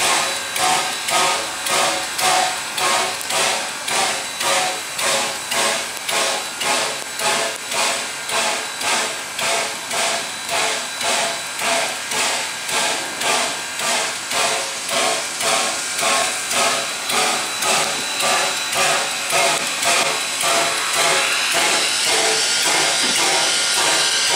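Steam locomotive No. 58, a 1907 Baldwin 0-6-0 switcher, working under steam: an even beat of exhaust chuffs, about one and a half a second, with steam hissing around the cylinders. Near the end the chuffs fade into a steadier hiss.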